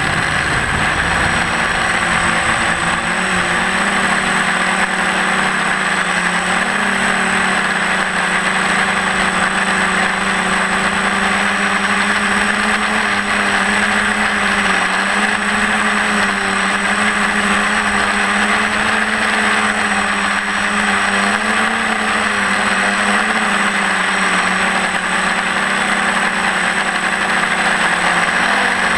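TBS Discovery quadcopter's electric motors and propellers running steadily, heard through its onboard camera, with a hum whose pitch wavers slightly under a thick hiss and a thin high whine.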